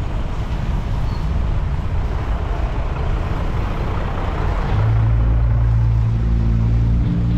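City street traffic heard from a moving bicycle, with rough wind rumble on the camera microphone. About two thirds of the way in, a steady low engine drone sets in, louder, and holds to the end.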